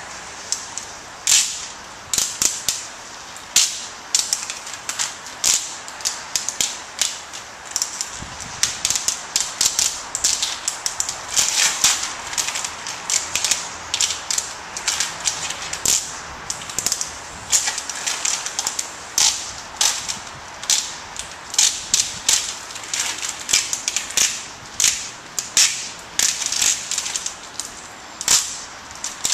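Application mask being peeled off a vinyl window graphic, crackling in dense, irregular sharp snaps as the tape comes away from the vinyl and glass.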